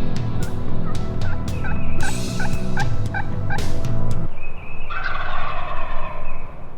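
Heavy rock intro music plays and stops about four seconds in. Then a wild turkey gobbler gobbles: one rattling call that falls in pitch.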